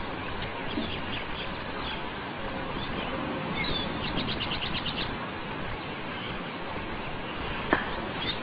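Small bird chirping over a steady hiss of background noise, with a quick run of about eight even notes a few seconds in. A single sharp click comes near the end.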